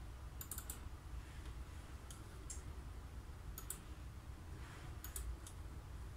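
Computer mouse buttons clicking: sharp single clicks and quick double-clicks in small groups, about nine in all, over a faint low hum.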